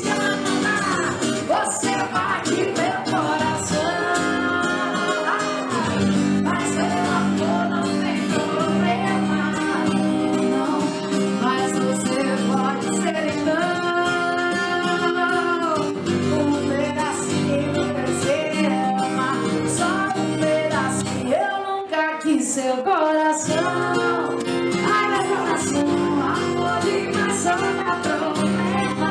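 A woman singing a song live into a microphone, accompanying herself on a strummed acoustic guitar. The guitar drops out for a moment about three-quarters of the way through, then comes back in.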